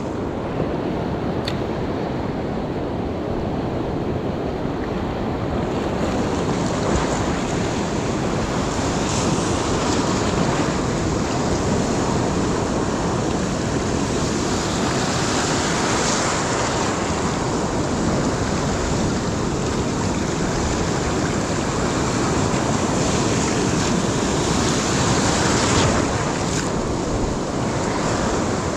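Sea waves breaking and surf washing through shallow water over rocks. The sound is a steady rush that swells with each incoming wave, several times.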